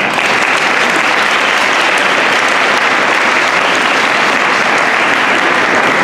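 Audience applauding: loud, steady clapping that starts at once and holds without a break.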